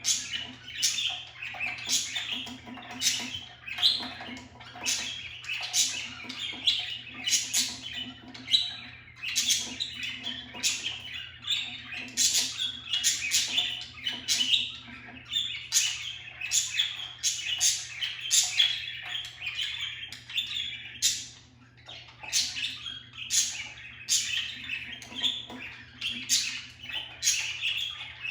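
Budgerigars chirping and chattering, a steady stream of quick, sharp calls several times a second, easing off briefly about three-quarters of the way through.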